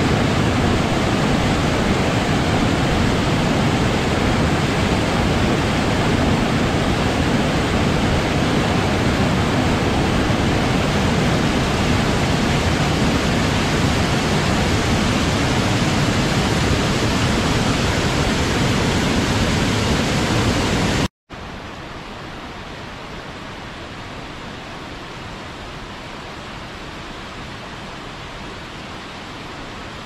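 Rushing water of a mountain waterfall cascading over boulders, a steady loud rush. About two-thirds through it cuts out for an instant and comes back as a quieter, thinner rush of falling water.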